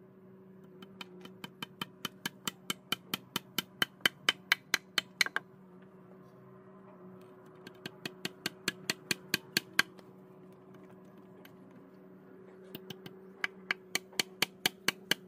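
Hammer knocking on wood in three quick, even runs of about three to four blows a second, with short pauses between, over a faint steady hum.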